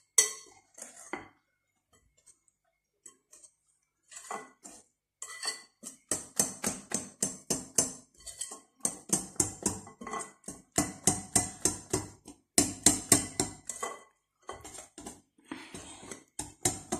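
A wire whisk beating chocolate cake batter in a glass bowl, with rapid clinking strokes against the bowl at about five a second. The strokes start a few seconds in and pause briefly near the end.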